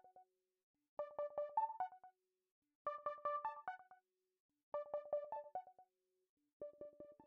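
Background music: a short electric-piano phrase of quick repeated notes, looping about every two seconds with brief silences between.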